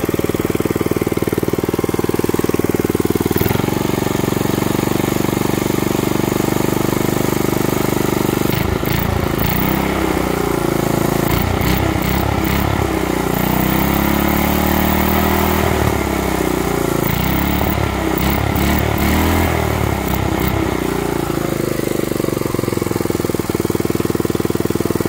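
A 5 hp Briggs & Stratton single-cylinder engine on a Mountfield M1 Monarch rotavator, running steadily. About eight seconds in its speed starts rising and falling repeatedly for roughly twelve seconds while the throttle is worked by hand at the carburettor, then it settles back to a steady run.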